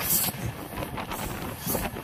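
Jan Shatabdi Express train running, heard from outside its moving coach, with wind buffeting the microphone in two strong gusts, one right at the start and one near the end.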